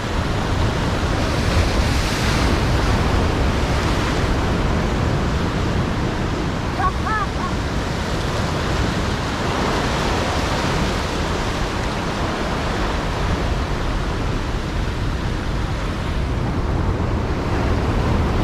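Rough surf breaking and washing, with strong wind buffeting the microphone. A brief high chirp sounds about seven seconds in.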